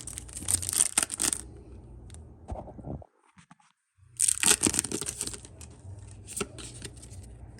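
Foil trading-card booster pack being torn open and crinkled: two bouts of tearing and rustling, with a brief drop to dead silence about three seconds in.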